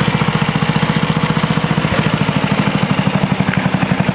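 Go-kart's 400cc Briggs & Stratton engine idling with a steady, even pulsing beat, still cold and warming up. It is running on a spark plug the owner calls terrible.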